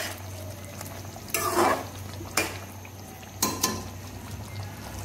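A metal spoon stirs chunks of potato in a simmering tomato sauce in a metal pot. It scrapes once and knocks sharply against the pot a few times, over a low sizzle.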